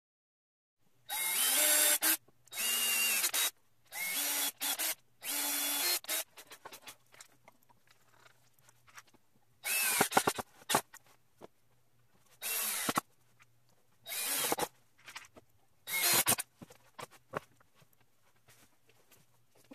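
Power drill run in about nine short bursts of up to a second, its motor whine changing pitch as the trigger is squeezed and released. Light knocks and handling sounds come between the bursts.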